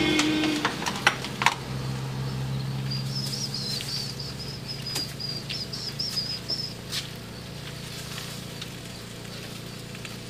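A few sharp clinks of a metal ladle against an iron wok in the first second and a half, then a small bird twittering for about two seconds, over a steady low hum.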